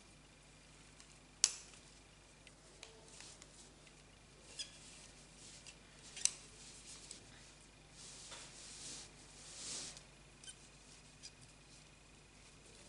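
Faint handling of a metal spring-closure bag frame and a crocheted cord bag: two sharp metallic clicks, about a second and a half in and about six seconds in, a few lighter ticks, and soft rustling of the crocheted cord around eight to ten seconds in.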